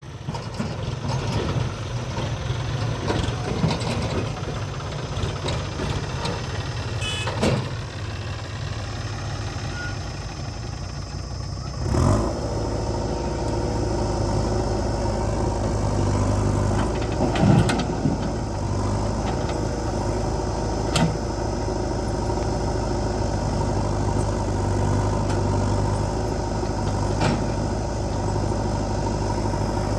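Diesel engines of heavy farm and earth-moving machinery running steadily, with a few sharp knocks scattered through. About 12 seconds in the engine sound changes abruptly to a steadier, fuller hum.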